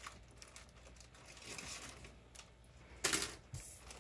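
Costume jewelry being handled: faint clicks, clinks and rustles, with a louder burst of handling noise lasting under half a second about three seconds in.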